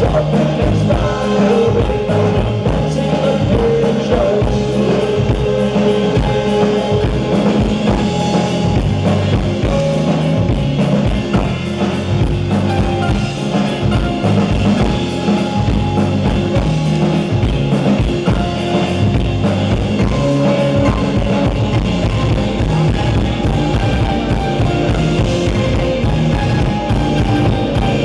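Live band playing amplified: banjo and electric guitar over a drum kit, with a man singing, heard from the audience in a club room.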